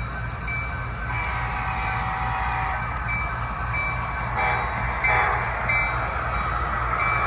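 Model Union Pacific diesel locomotives running past on a layout, their onboard sound playing a low pulsing diesel engine rumble. A short bell-like ding repeats about every half second or so, and held chords come in about a second in and again near five seconds.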